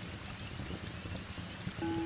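Steady heavy rain with fireplace crackling underneath. Near the end a Tibetan singing bowl starts ringing with a steady, clear tone.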